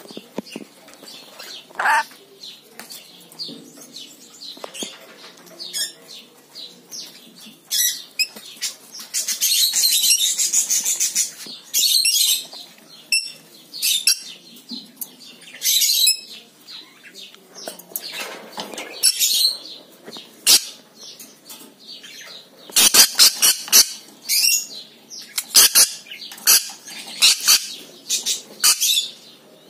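Caged lorikeet giving short, high-pitched chirps and squawks in scattered bursts, thickest near the middle and toward the end.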